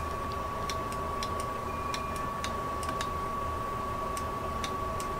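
Faint, irregularly spaced ticks, about two or three a second, over a steady high-pitched electrical whine.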